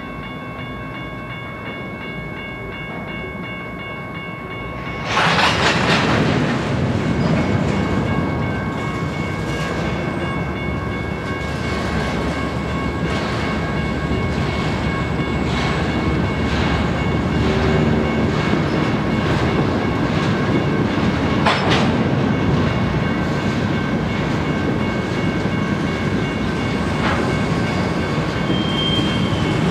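Freight train of covered hopper cars rolling slowly past a grade crossing, wheels clacking over the rail joints. The rolling noise gets much louder about five seconds in, over a steady ringing from the crossing signal's bell.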